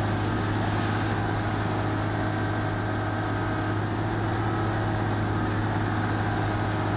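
Steady drone of shipboard machinery with a strong low hum, unchanging throughout, on the deck where the recovery winch hauls in its line.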